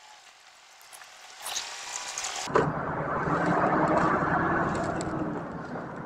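Hino Profia truck's 9-litre diesel engine pulling away under the semi-automatic transmission, heard from inside the cab. The engine sound comes in suddenly and much louder about two and a half seconds in, with a faint steady whine, then eases slightly near the end.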